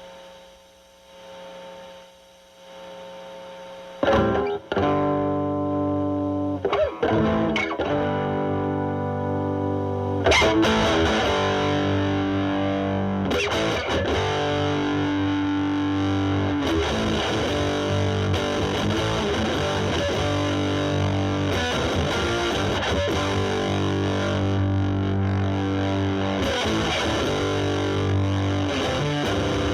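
Electric guitar (Stratocaster) played through a Boss DS-2 Turbo Distortion pedal, distortion at about 3 o'clock with turbo mode off, into a Marshall Valvestate amp's drive channel: heavily distorted chords and riffs. A held note fades to a low hum, and playing starts again about four seconds in.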